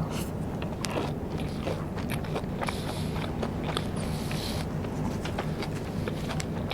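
Close-miked eating of Vietnamese rice paper snacks (bánh tráng): chewing and biting with many small sharp clicks and a couple of brief crunchy rustles, over a steady low hum.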